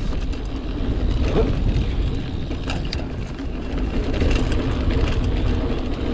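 Cube Stereo mountain bike rolling fast along a dirt singletrack: knobby tyres on packed dirt and leaves, with a steady low rumble and scattered small clicks and rattles from the bike.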